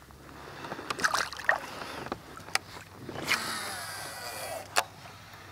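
Water splashing and sharp knocks and clicks against a plastic fishing kayak as a small largemouth bass is let go over the side. The knocks come singly, with one sharp click near the end.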